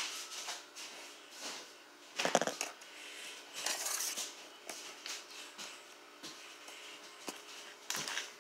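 Scattered rustles and light knocks of a child moving and dancing close by, irregular and without music, with a louder scuffing rustle a little over two seconds in and another sharp one near the end as she comes back to the counter.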